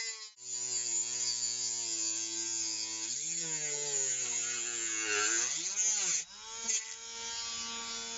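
Parkside cordless rotary tool with a cutting disc cutting into a hard model wall piece: a small motor whine with a gritty cutting hiss, its pitch held low and wavering as the disc bites, dipping sharply around two-thirds through. Near the end the disc comes free of the work and the tool runs on with a steadier, higher whine.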